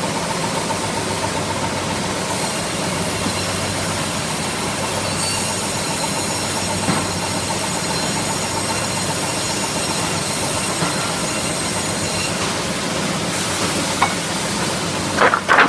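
Automatic sawmill line machinery running steadily with a constant motor hum, and a few sharp clanks near the end.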